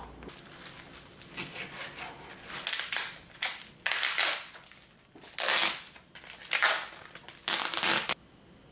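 Clear plastic cling wrap on a food tray crinkling and being peeled back by hand, in about five short bursts that stop suddenly near the end.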